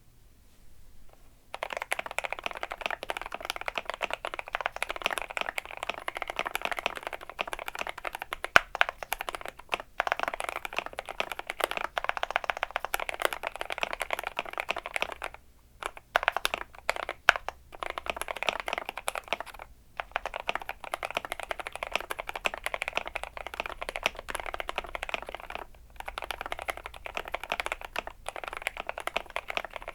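Continuous fast typing on a GMMK Pro mechanical keyboard fitted with lubed Gateron Black Ink V2 linear switches on a polycarbonate plate with PE foam, the keystrokes giving a dense run of clacks with a few brief pauses; the typing starts about a second and a half in, after a short quiet.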